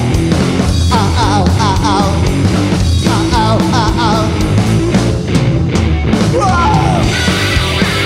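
Live rock band playing an instrumental passage on electric guitar, bass and drums, with a lead line of bent, wavering notes repeated in short phrases. Near the end the cymbals get louder.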